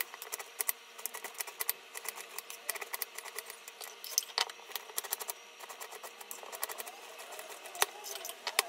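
Chef's knife chopping an onion on a wooden cutting board: quick runs of sharp taps as the blade strikes the board, several a second, with two louder knocks near the end.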